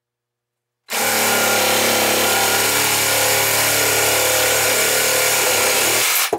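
Cordless reciprocating saw cutting through a PVC drain pipe: it starts about a second in, runs at a steady speed, and stops abruptly near the end as the pipe is cut through.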